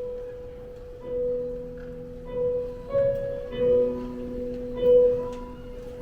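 Slow instrumental music: a long held note under a few pitched notes entering about once a second, with no singing.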